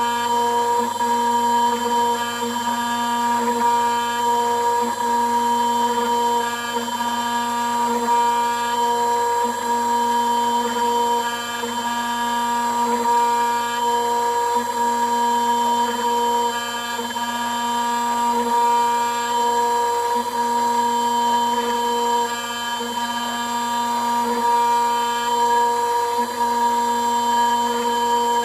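CNC router spindle whining steadily as its end mill cuts a metal block, the tone wavering slightly every couple of seconds.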